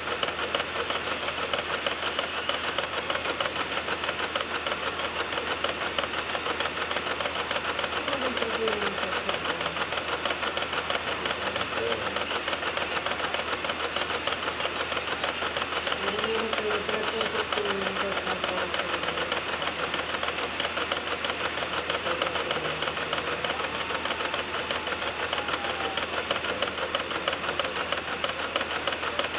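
DVD drive clicking rapidly and steadily as it reads files from a boot disc, the clicks keeping an even pace.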